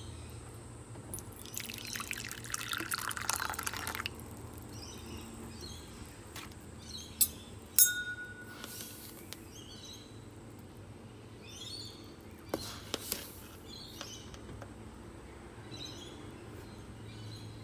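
Warm water poured from an electric kettle into a ceramic bowl, running for about three seconds starting about a second in. A few sharp knocks follow a few seconds later and again around two-thirds of the way through, over a steady low hum.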